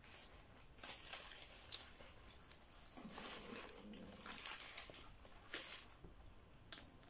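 Faint sipping and swallowing as soda is drunk from a can: a string of soft, hissy sips over several seconds, with a brief low hum from the throat a couple of times in the middle.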